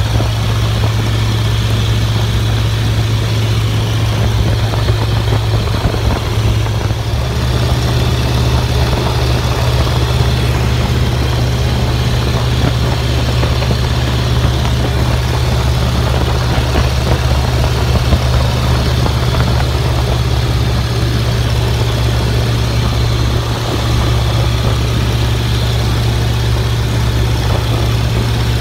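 Biplane's piston engine running steadily in flight, a constant low drone, with wind rushing over the open cockpit.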